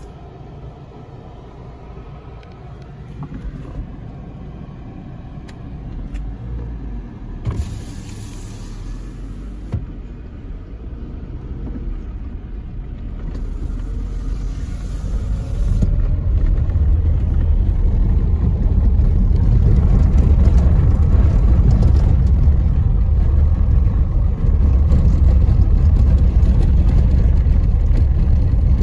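Car driving on an unpaved dirt road, heard from inside the cabin: a low engine and tyre rumble that grows steadily louder and stays loud from about halfway through. A few light knocks come near the middle.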